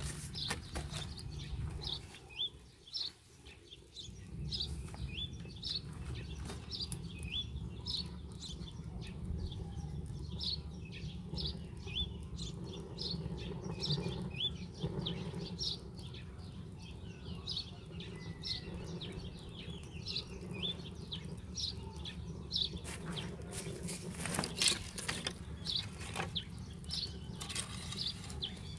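A small bird chirping over and over, short high chirps about once or twice a second, over a steady low rumble. A few sharp knocks near the end, from wooden planks being handled.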